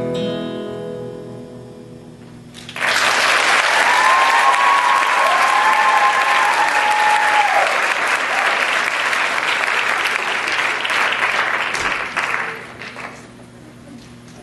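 Sustained music tones fade out, then about three seconds in an audience breaks into loud applause with a drawn-out cheer over it, dying away near the end.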